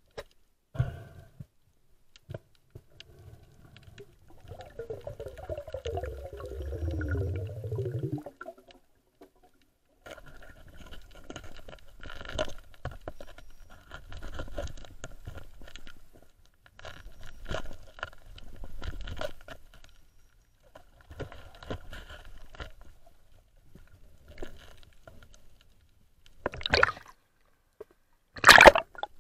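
Muffled underwater sound picked up by a diver's camera: water movement, bubbling and clicks, with recurring swishes, then loud splashing near the end as the camera reaches the surface.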